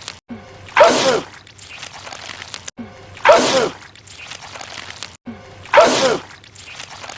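A man sneezing loudly, the same sneeze repeated three times about two and a half seconds apart. Each is a sudden burst with a falling voiced cry, then a brief softer tail, with a short dropout where the loop is cut before the next one.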